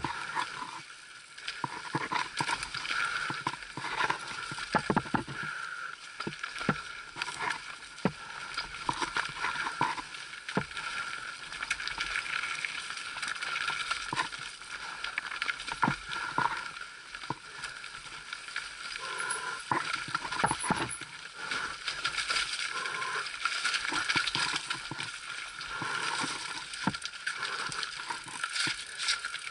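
Mountain bike riding down a rough, rocky trail, heard close to the bike: constant rattling with many irregular knocks and clatters as it hits rocks and roots, over a steady hiss.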